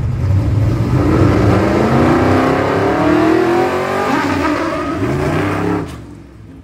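Vintage open-cab fire truck's engine accelerating as the truck drives off, its pitch climbing steadily over a few seconds; the sound cuts off suddenly near the end.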